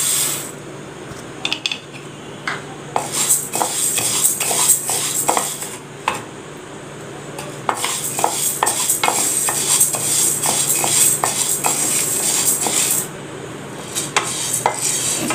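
Dry horse gram seeds rattling and scraping in a nonstick kadai as a wooden spatula stirs them during dry roasting, in spells of quick clicking with short pauses. At the very start the last of the seeds pour into the pan.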